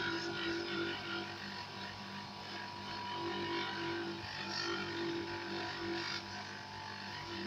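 Dental polishing lathe running steadily, with an acrylic partial denture being polished against a wet pumice wheel: a steady motor hum under an even hiss.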